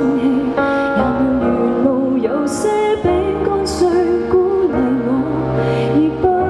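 A woman singing a Cantopop song live into a microphone, her held notes wavering with vibrato, over a band accompaniment with guitar and sustained bass notes.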